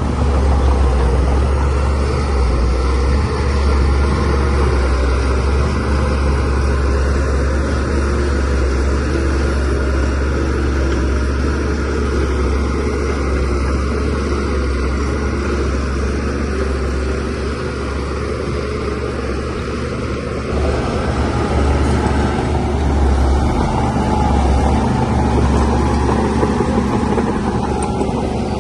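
DH17C3 bulldozer's diesel engine running steadily under load, its note shifting briefly about twenty seconds in.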